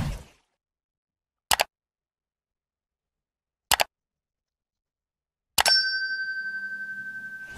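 Subscribe-button animation sound effects. The tail of a whoosh opens the clip, then two short mouse clicks come about two seconds apart, and a bright notification-bell ding near the end rings on with a steady tone, fading slowly.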